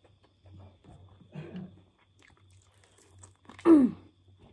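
Close-up chewing and biting of chicken pieces: wet mouth noises with small crunches and clicks. About three and a half seconds in, a short vocal sound falling in pitch.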